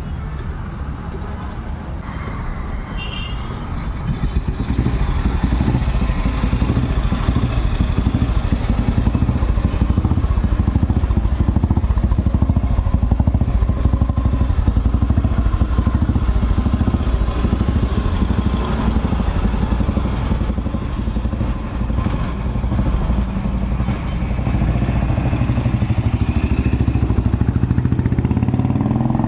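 Restored 1976 Royal Enfield Bullet's single-cylinder four-stroke engine running with a steady low beat. It gets louder about four seconds in and stays up, easing off briefly about two-thirds of the way through.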